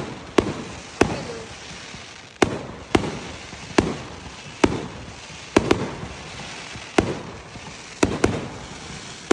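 Fireworks going off: about eleven sharp bangs at irregular intervals, a couple in quick pairs, each trailing off in an echoing rumble.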